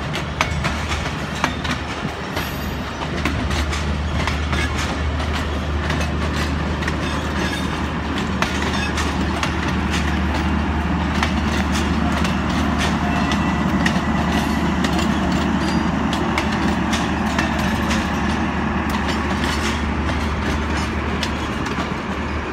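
Pakistan Railways passenger coaches rolling past as the train pulls out, with a steady rumble and many sharp wheel clicks over the rail joints.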